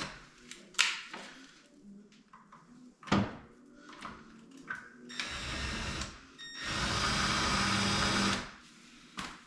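Power drill running twice, briefly and then for about two seconds, drilling a handle hole through a cabinet door, with a few knocks of handling before it.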